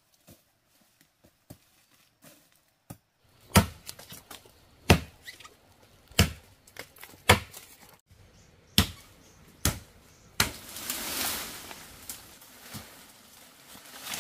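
A few faint taps, then a run of sharp chopping strikes, about seven of them a second or so apart. A rustling noise follows near the end.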